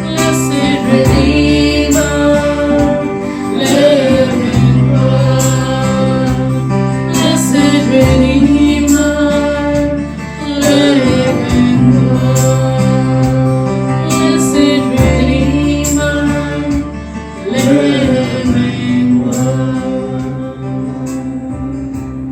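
Christian worship song: singing over instruments with held bass notes and a steady beat, fading out near the end.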